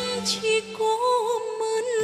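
Slow Vietnamese ballad music: a held, wavering melody line over a thinned-out backing, with the low bass dropping out and coming back in right at the end.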